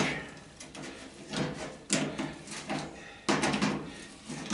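Metal clanking and rattling as tools and faucet parts are handled, with a crescent wrench being worked on the faucet: several short bursts of knocks, the sharpest just under two seconds in.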